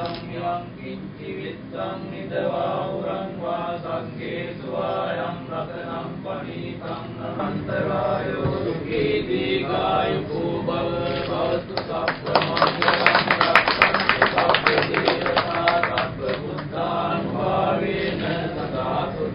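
Group of voices chanting a religious blessing in a steady recitation. About twelve seconds in, a burst of sharp crackling clicks rises over the chant for a few seconds.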